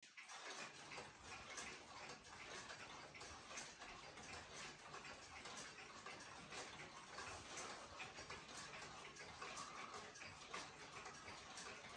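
Mechanical pendulum wall clocks ticking faintly, a Howard Miller Jennison among them, with several clocks' ticks overlapping unevenly.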